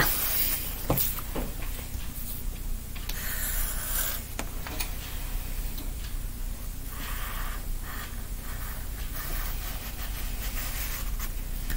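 Marker tip rubbing and scratching on paper as it is drawn around the rim of an upturned plastic cup, in short strokes, with a few light taps.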